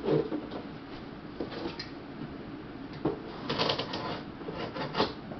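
Handling noises as a boxed cart and its packaging are opened and moved: scattered knocks and rustles. The sharpest come just after the start and about five seconds in, with a busier patch of rustling a little past three seconds.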